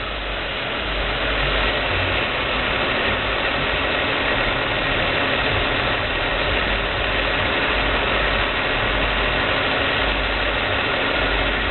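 Buick 3800 V6 engine idling steadily after a cold start, run to push trapped air out of the cooling system through the open bleeder.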